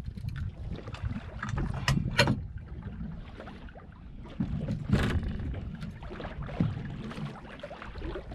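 Wind buffeting the microphone and water slapping against a small boat's hull as it drifts, a steady low rumble. There are two sharp clicks, about two seconds in and about five seconds in.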